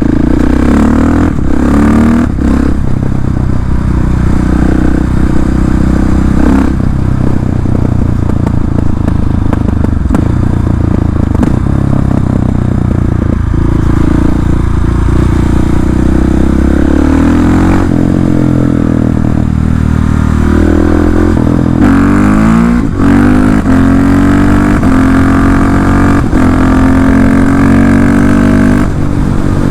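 KTM 690 SMC R's single-cylinder engine under way through an open Arrow exhaust with the dB-eater removed, the note rising and falling with throttle and gear changes. There are a few sharp pops from the exhaust. About two-thirds of the way in, the pitch dips and then climbs again.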